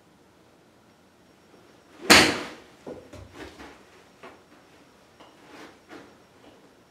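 A single sharp crack of a golf iron striking a ball off a hitting mat into a practice net, followed by several softer knocks and taps over the next few seconds.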